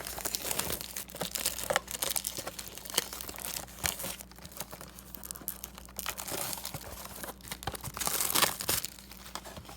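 Plastic trading-card packaging being torn open and crinkled by hand, in irregular rustles and rips, with the loudest burst of crinkling about eight seconds in.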